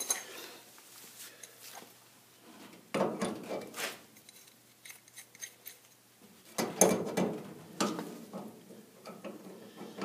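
Metal clinking and scraping of a wrench working the thermocouple's threaded fitting into a furnace gas valve, in two short bursts about three and seven seconds in.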